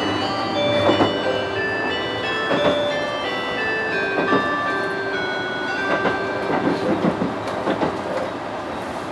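A melody of short chime-like notes plays over the steady running noise of a train, whose wheels clack over rail joints several times. The melody is the kind of chime played just before a station-arrival announcement.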